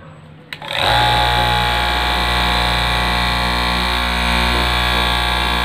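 Electric straight-knife cloth cutting machine switched on with a click about half a second in, then running with a steady motor hum and buzz as its vertical blade cuts through a thick stack of fabric layers.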